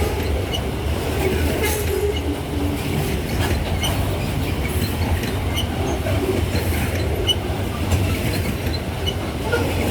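Loaded grain freight train rolling past, its wagons giving a steady low rumble with scattered clicks and squeaks from the wheels on the rails.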